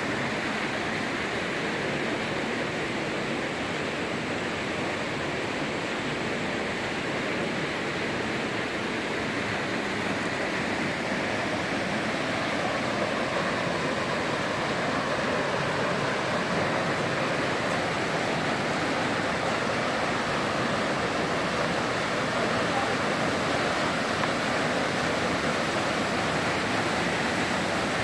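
Steady rush of flowing water from a creek, growing a little louder in the second half.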